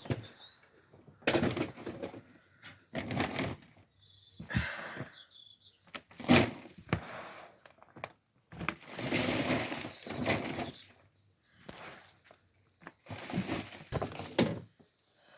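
Irregular rustling and scraping with a few sharp knocks, separated by short pauses: soil being rubbed off freshly dug potatoes and the potatoes handled and set down.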